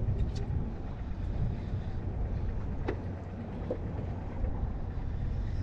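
Wind rumbling on the microphone over water against the hull of a small drifting open skiff, a steady low noise. A single sharp click comes about three seconds in.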